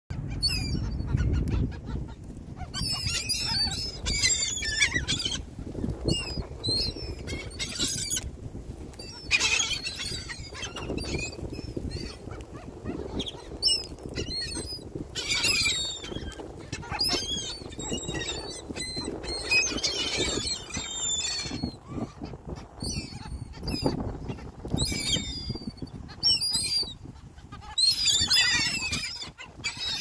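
A flock of gulls calling, many overlapping squawking calls coming in bursts every second or two, over a steady low rumble.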